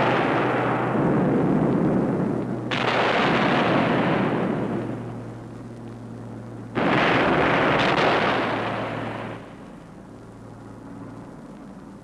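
Aerial bombs exploding in a series of heavy blasts. A new one starts abruptly about three seconds in and another about seven seconds in, each rumbling away slowly. It falls to a lower rumble for the last couple of seconds.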